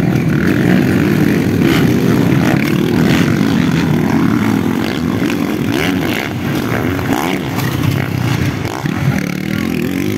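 Several motocross bikes revving hard as they race over the jumps of a dirt track, the engine pitch rising and falling as riders throttle on and off.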